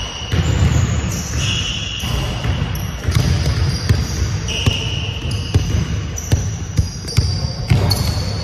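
Basketball dribbled on a hardwood gym floor, with repeated bounces and short high squeals of sneakers on the court.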